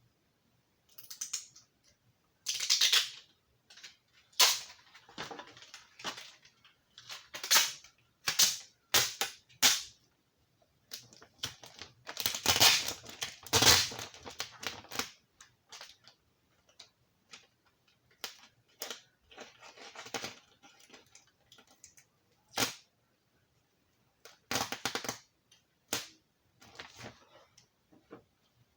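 Hand work with parts and tools: irregular sharp clicks and knocks mixed with short rustling scrapes, busiest about three seconds in, around twelve to fourteen seconds in and near the end.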